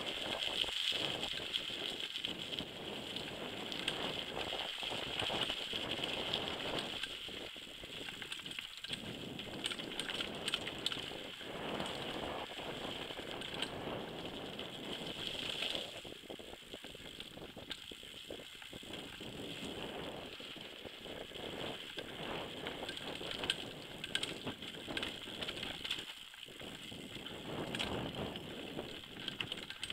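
Mountain bike descending a rough downhill trail, heard from a helmet camera: the bike clattering and rattling over roots and ruts, tyres on dirt, with the rear hub's freewheel ticking, and many small knocks throughout.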